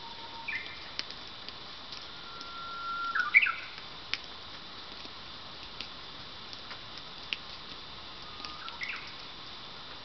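Japanese bush warbler (uguisu) singing its hō-hokekyo song twice: a long held whistle that breaks into a quick rising flourish, about three seconds in and again, fainter, near the end. A short call comes just before the first song.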